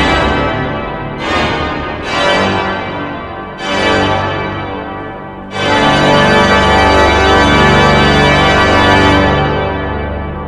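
Pipe organ playing loud full chords with pedal bass, struck one after another and then a last chord held for about four seconds. When it is released, the sound dies away slowly in the room's reverberation.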